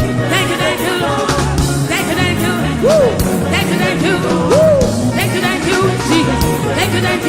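Gospel worship music with a band and singing voices, a steady beat under it.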